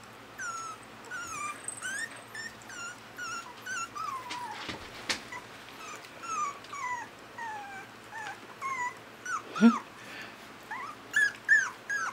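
Miniature American Eskimo puppies whimpering: a string of short, high, falling whines, about two a second, with one louder yelp about ten seconds in.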